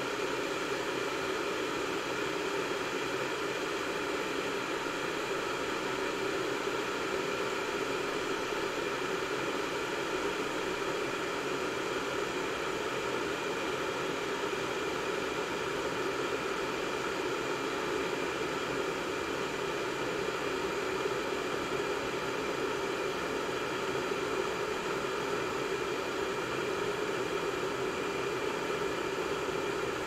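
Water heater heating water: a steady, even hiss with no click or change.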